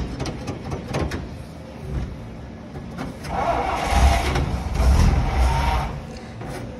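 1949 Dodge truck's flathead six being cranked over by the starter for about three seconds, beginning about three seconds in, after a few clicks.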